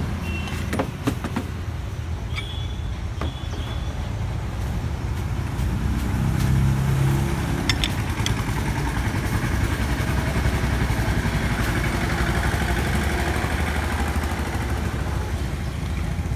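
Steady low rumble of motor vehicle noise, swelling slightly about six seconds in. A few sharp metallic clicks fall about a second in, about three seconds in and near eight seconds.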